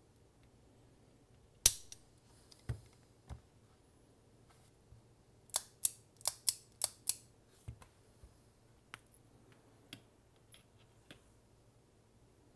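Sharp metallic clicks and taps from a Smith & Wesson 642 J-frame revolver being reassembled by hand with its side plate off: one loud click a second and a half in, a quick run of about six clicks around the middle, then a few fainter ticks.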